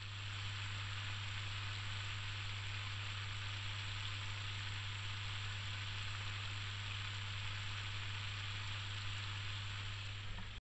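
Spice-coated chicken strips deep-frying in a small pan of hot cooking oil: a steady sizzle. A steady low hum runs underneath.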